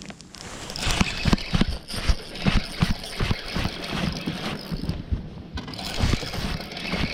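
Irregular knocks, thumps and splashing on a bass boat as a hooked bass is fought and brought aboard.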